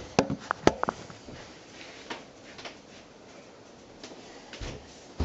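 Handling knocks as a camera is moved and set down on a wooden table: several sharp clicks and knocks in the first second, then a few faint scattered clicks and light kitchen clatter.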